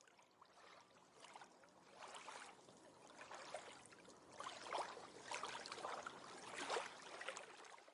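Typhoon wind and rain outdoors, a rushing noise that swells and fades in uneven gusts, strongest in the second half.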